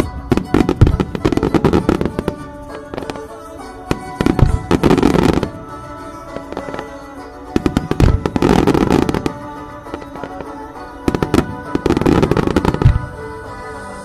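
Japanese hanabi fireworks going off in four clusters of rapid sharp cracks and bangs, about every three to four seconds, over a music soundtrack with sustained tones.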